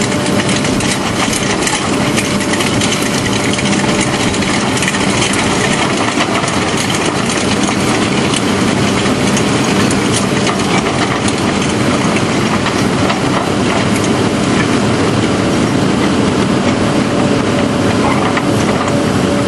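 ANT hydraulic drum cutter on an excavator grinding into weathered rock, a steady dense crackle of rock chips breaking over the excavator's engine running under load.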